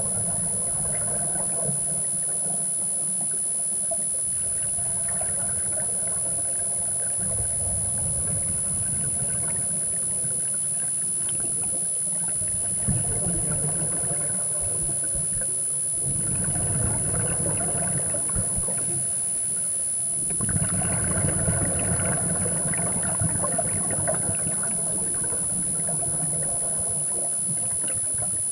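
Scuba regulator exhaust bubbles heard underwater through the camera housing: four muffled, rushing bursts of a few seconds each, one per exhalation, over a steady dull rumble and a constant high whine.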